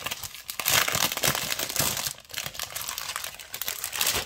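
Clear plastic packaging around a pack of scrapbook paper crinkling and rustling as it is handled and opened, in irregular bursts that are loudest in the first half.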